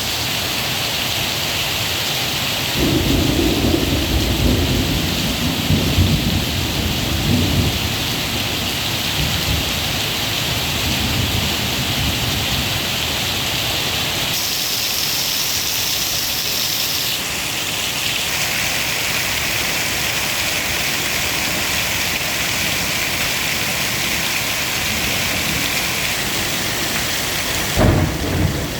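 Heavy monsoon downpour, a steady rush of rain, with thunder rumbling for several seconds starting about three seconds in and a short, sharp thunderclap near the end.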